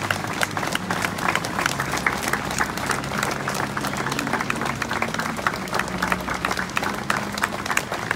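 Crowd applauding: a steady patter of many hands clapping.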